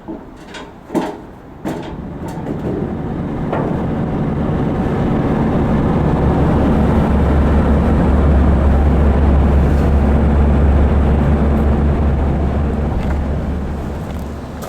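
Low engine rumble of a heavy vehicle swelling over several seconds, loudest midway, then fading away as if it passes by. A few sharp knocks come just before it.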